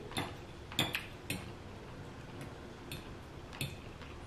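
Metal fork clinking against a glass dinner plate while cutting and picking up food: about six light, sharp clicks at uneven intervals.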